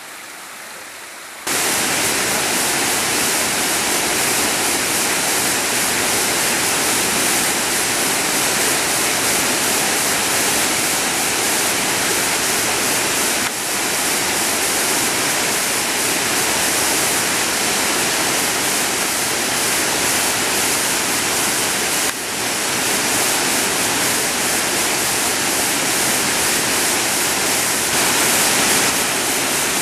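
Waterfall rushing: a loud, steady roar of falling water that comes in suddenly about a second and a half in, after a quieter stretch, with two brief dips in level partway through.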